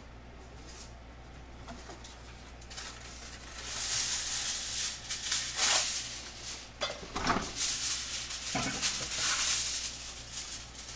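Aluminium foil being pulled off the roll from its box and crinkled by hand: a crackling rustle that starts about three or four seconds in and goes on in irregular spurts, with a few sharper louder crackles.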